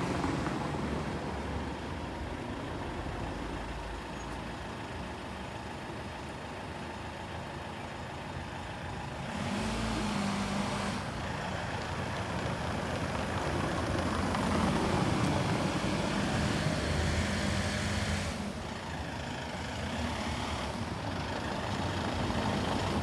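A Citroën delivery van's engine running at low speed as it creeps closer along a cobbled street, with a car following. The engine hum swells twice, about ten seconds in and again midway through the second half.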